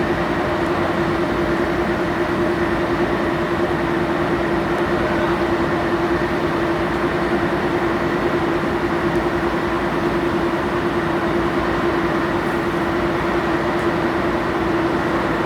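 Car ferry's engines and machinery running steadily as the ship gets under way: a constant rumble with a steady droning hum running through it.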